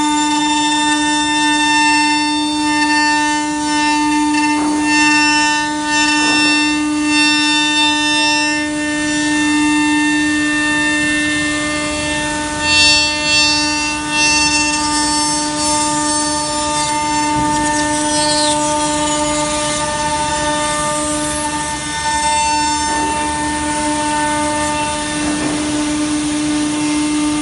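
Six-axis CNC router's spindle whining at a steady high pitch while its cutter carves wood, with the rough noise of the cut running underneath.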